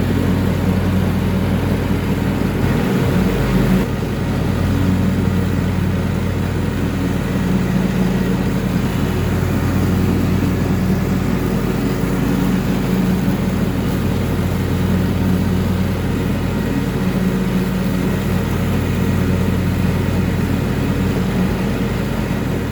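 John Deere X350 riding mower's Kawasaki engine running steadily under load while it mows tall grass with the mulching deck.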